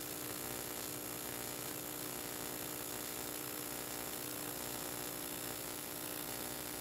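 AC TIG welding arc on aluminum plate, a steady buzz with a constant hum and hiss, as a bead is run with filler rod.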